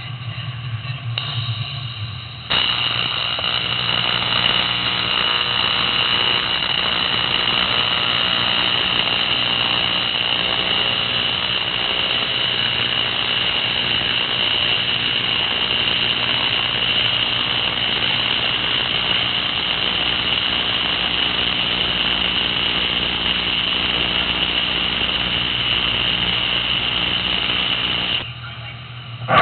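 AC TIG welding arc on aluminum, unpulsed, buzzing steadily. The arc strikes about two and a half seconds in and cuts off just before the end.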